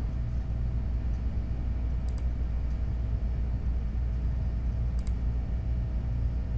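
A steady low hum with a few faint computer mouse clicks: two quick double clicks, about two seconds in and again about five seconds in, placing anchor points for a lasso selection.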